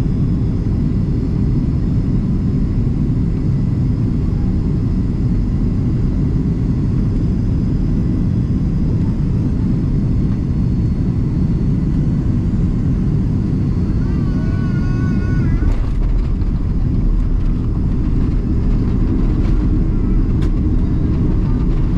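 Cabin noise of a Boeing 767-300ER landing, heard beside the wing: a steady low rumble of airflow and engines on final approach. About 16 seconds in a sharp knock marks the touchdown, and the rumble turns deeper and heavier as the wheels roll on the runway with the thrust reversers deployed.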